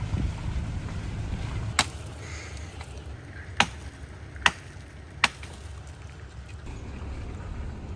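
Four sharp chops of a hatchet biting into a fallen tree's limb. The first comes about two seconds in, and the other three follow in quicker succession.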